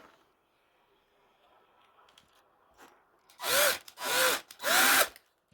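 Electric drill run in three short bursts, each spinning up and winding down, while drilling out the rivet that holds a diecast toy truck together.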